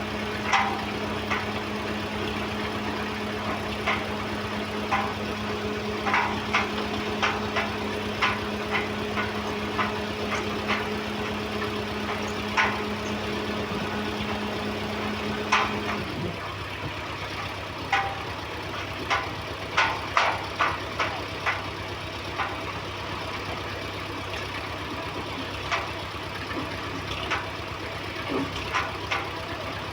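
Construction machinery engines running steadily, with irregular sharp metallic clanks and knocks. One of the steady hums cuts off suddenly about halfway through, while a lower hum continues.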